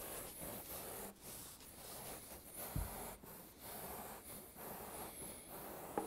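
A knife sawing through a mineral-wool insulation board: soft rasping strokes about once a second, with one low thump about halfway through.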